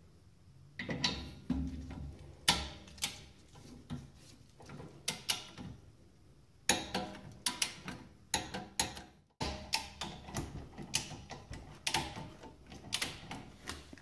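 Torque wrench ratcheting in short runs of sharp clicks with pauses between, as the brake caliper bolts are tightened.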